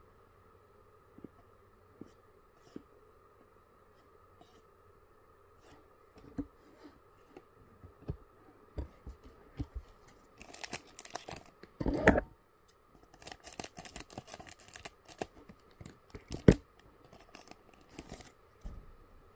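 Trading cards handled with a few light taps, then from about halfway through the crinkling and tearing of a foil booster-pack wrapper, with two sharp loud tears or crackles.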